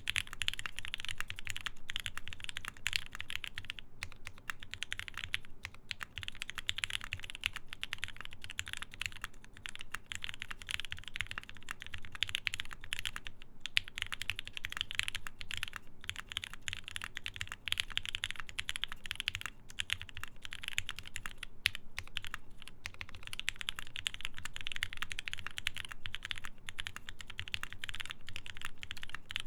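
Continuous typing on a Geonworks F1-8X mechanical keyboard with lubed Gateron Ink switches in a full aluminium plate: a dense, steady patter of keystrokes with a few brief pauses.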